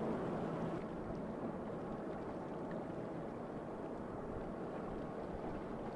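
Lake freighter American Spirit passing close by: a steady low rumble from her engine and the water along her hull, with only her starboard engine working.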